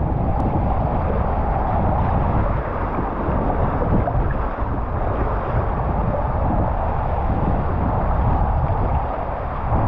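Water rushing along a fibreglass waterslide flume as a rider slides down it, with wind buffeting the microphone: a steady, dense wash of noise.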